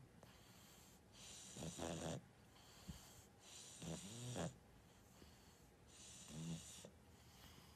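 An old black pug breathing noisily through its nose, a snore-like rasp on each breath, three breaths about two and a half seconds apart.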